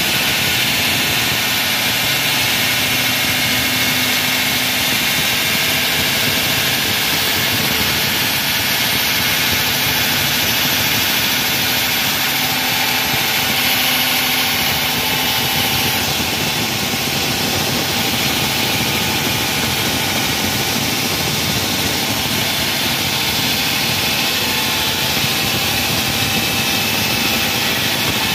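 Wall saw running steadily as it cuts a wall: a loud, even machine noise with a faint steady tone in it, easing slightly about two-thirds of the way through.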